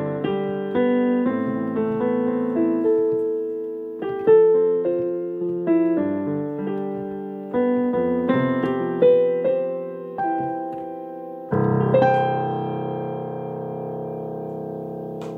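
Solo piano playing a slow melody over chords, note by note, each note decaying. About eleven and a half seconds in, a final full chord is struck and held, fading away.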